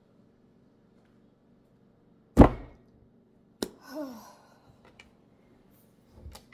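A heavy handbag set down on a wooden table with one loud, dull thump about two and a half seconds in, followed by a sharper knock and a few light clicks as it is handled.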